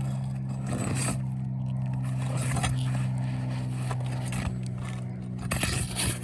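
Scraping and short clicks of asphalt roof shingles and a nail being worked loose by hand, over a steady low hum from a running machine.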